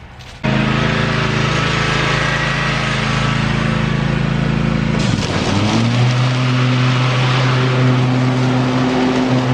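Cub Cadet Ultima ZT1 zero-turn mower engine running steadily as the mower is driven. It comes in abruptly about half a second in, and about five seconds in its pitch dips briefly and picks back up.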